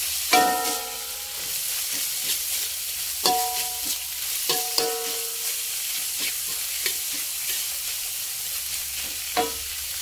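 Shredded cabbage and spring onion sizzling in oil in a metal wok while being stir-fried with a metal spatula. The spatula scrapes and clicks against the pan, and four knocks ring out: the loudest just after the start, two more around three to five seconds in, and one near the end.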